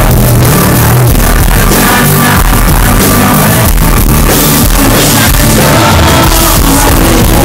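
Live band playing loud rock music with electric guitar, and some singing.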